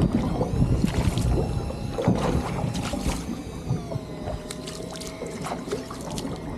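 Open-sea ambience aboard a small fishing boat: steady wind and water noise, with scattered sharp clicks and knocks from the boat and its gear.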